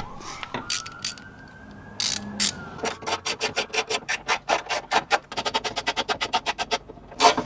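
Socket ratchet clicking as it backs out the 10 mm bolts that hold the window glass to the regulator. A few scattered clicks at first, then a fast, even run of about six clicks a second from about three seconds in.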